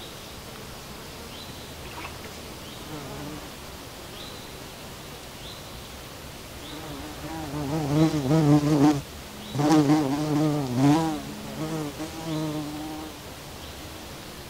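A flying insect buzzing close past the microphone. The wingbeat hum wavers up and down in pitch, swells in about halfway through, breaks off briefly and returns before fading. Under it runs a steady background hiss, with faint short high chirps repeating roughly every second and a half.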